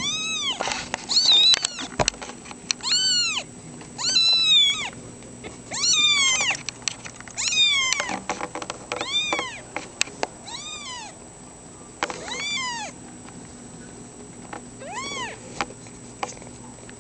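Young kittens mewing over and over, high, thin cries that rise and fall in pitch, about one a second, with a pause of a couple of seconds near the end.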